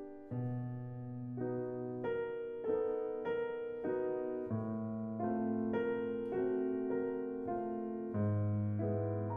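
Soundtrack music: a piano playing a gentle melody, one note about every 0.6 seconds, over deep held bass notes.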